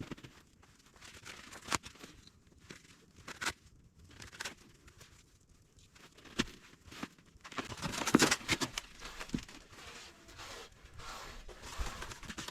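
Paper crumpling and tearing with scattered clicks and knocks, as the fireplace is fed to build up a small fire; the loudest burst of rustling comes about eight seconds in.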